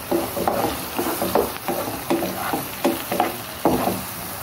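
Spatula stirring calamari rings, peas and onion frying in oil in a pan: short scraping strokes about three a second over a steady sizzle.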